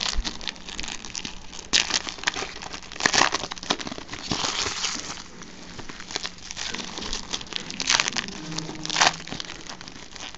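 Foil trading-card pack wrappers crinkling and tearing as packs are torn open by hand, in an irregular run of crackles with louder bursts about 2, 3, 8 and 9 seconds in.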